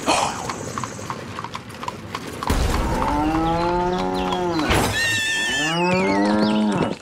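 Two long cow moos, a recorded sound dubbed onto a toy cow, the first starting about two and a half seconds in and the second about five seconds in. Before them, a regular clicking at about four a second, and a high wavering whistle over the start of the second moo.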